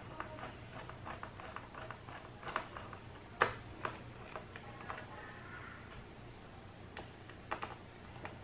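Scattered light clicks and ticks of a small screwdriver and tweezers working screws out of a Lenovo ThinkPad X250's plastic bottom cover. One sharper click comes about three and a half seconds in, and there is a faint scrape a little later.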